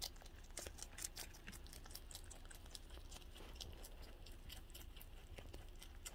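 Rabbit chewing crisp lettuce: quick, faint crunching clicks, thickest in the first half and thinning out later.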